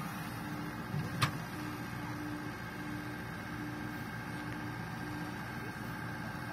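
Komatsu hydraulic excavator running steadily while digging, with a low hum that comes and goes several times as the hydraulics work. A single sharp click about a second in.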